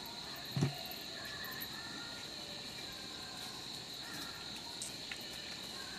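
Insects chirring in one steady high note, with a brief low sound about half a second in.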